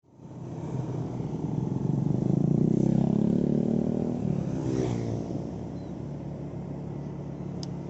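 Motor vehicle engine running, growing louder over the first two seconds and easing off after about four seconds, its pitch falling near the middle.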